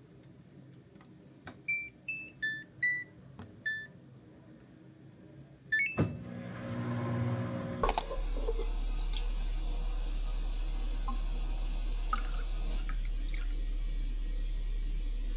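Washing machine being started: about six short control-panel beeps as its buttons are pressed, a click and a thump, then a steady low hum with water running in as it begins to fill.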